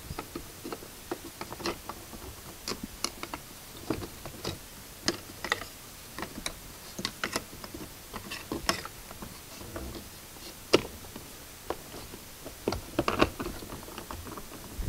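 Irregular small plastic clicks and taps as the 2008 Hyundai Santa Fe's inside door handle and its trim bezel are worked and pushed into place in the door panel, with one sharper knock about two-thirds of the way through.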